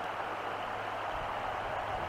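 Steady hiss of outdoor background noise with a faint low hum; a low rumble comes in about a second in.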